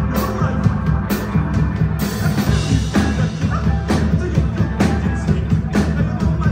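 Live rock band playing: a heavy electric bass line over a driving drum-kit beat, with keyboards, and a cymbal crash about two seconds in.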